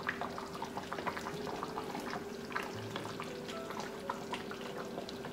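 Chicken afritada in tomato sauce simmering in a stainless steel pot, bubbling and popping as a wooden spoon stirs through the chicken and potatoes. A faint steady hum runs underneath.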